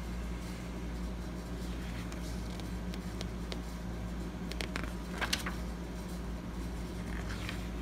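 Paper pages of a printed instruction manual being handled and turned, giving a few soft rustles and clicks, the loudest about five seconds in, over a steady low background hum.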